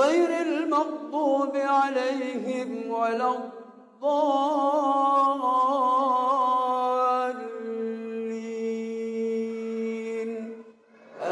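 A mosque imam's voice reciting the Quran in a melodic chant through a microphone: two ornamented phrases with a short breath between them, the second ending on a long held note.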